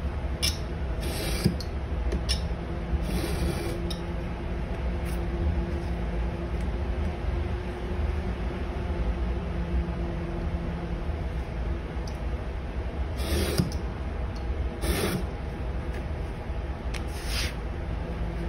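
A blade drawn along a steel ruler slicing tan leather on a cutting mat: several short scraping cuts, over a steady low background hum.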